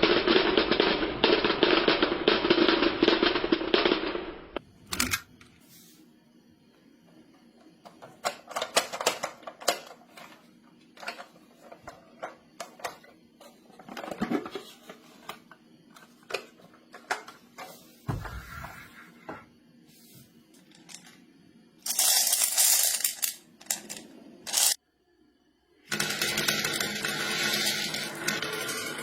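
Marbles clicking and clattering against a plastic block marble-run track in irregular bursts of sharp ticks with quieter gaps between. There are denser, louder stretches of rattling at the start and again near the end.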